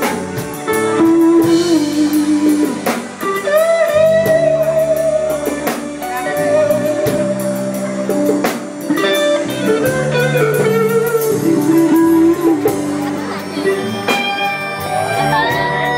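Live band playing a slow instrumental break: electric guitar and drum kit under a lead line of long, bending held notes.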